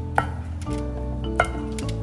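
Background music with a steady beat, over which a wooden spoon knocks twice, about a second apart, against a glass bowl with a short ringing clink while grated raw potatoes are scraped out.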